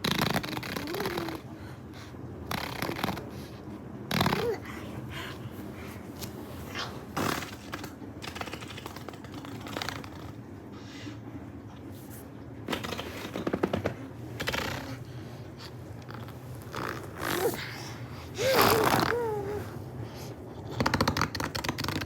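An 11-month-old baby blowing raspberries, making farting sounds with buzzing lips in repeated short bursts. A few brief rising-and-falling baby vocal sounds come in between, the longest about two-thirds of the way in.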